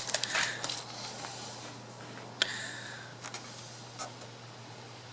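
Hands working VHB tape onto a truck bed: a few scattered clicks and light rustling over a steady low hum.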